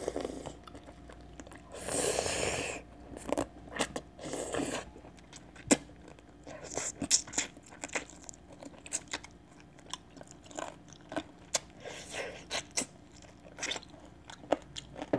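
Close-up eating sounds of biting and chewing meat off a boiled chicken drumstick: irregular wet smacks and clicks. Two longer noisy sounds come about two and four seconds in.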